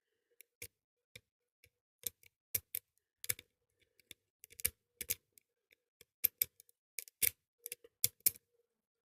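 Irregular light metallic clicks of a pick and tension wrench working the pins of a Dom Titan pin-tumbler padlock with brass security pins, as it is picked open.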